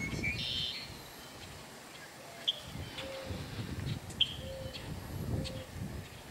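Background birds: a few short, high chirps spaced a second or two apart, with some brief low steady notes, over an uneven low rumble.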